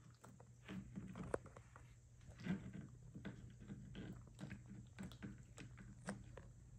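Puppy gnawing a dried chew: irregular small crunches and clicks of teeth on the chew, a few sharper ones, over a steady low hum.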